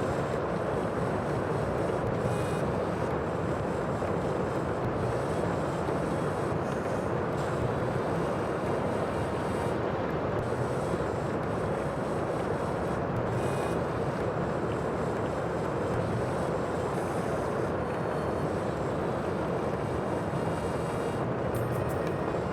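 Sea noise: a steady, even rush of waves and wind.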